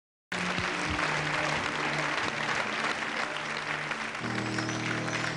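Audience applauding, cutting in suddenly, with stage music under it; a deeper sustained chord comes in about four seconds in.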